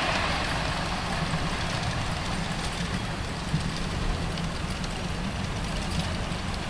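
A 7¼-inch gauge miniature steam locomotive and its passenger carriages running along the track away from the listener. It makes a steady low rumble that eases slightly in the first second, with a few faint knocks.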